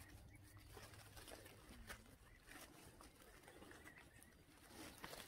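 Near silence: faint rustling and light clicks of blackberry bramble being handled while picking, with a few faint short bird chirps.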